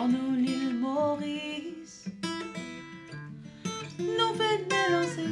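Acoustic guitar strummed and picked as accompaniment to a woman singing, her voice in two phrases, one at the start and one about four seconds in.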